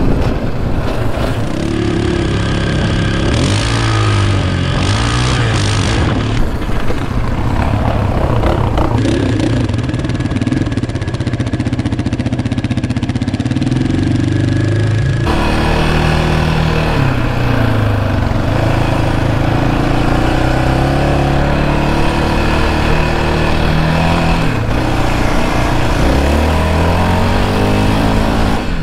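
Yamaha Raptor 700 ATV's single-cylinder engine running hard on a trail, its pitch climbing and dropping again and again with throttle and gear changes. The sound changes character abruptly about halfway through.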